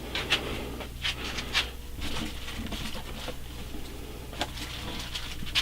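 Low steady electrical hum of the Tatung ceiling fan's stamped-steel spinner motor on the lowest variable-speed setting, with scattered sharp clicks and breathy rustling noises. The low-speed trim pot is set way down, so the fan barely runs.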